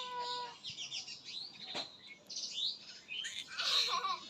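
Indian ringneck parakeet giving a string of short, high chirps and squeaky calls, with a louder cluster near the end.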